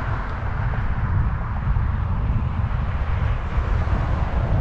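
Wind buffeting the microphone of a handlebar-mounted camera on a moving bicycle: a steady low rumble, with a hiss of road and traffic noise above it.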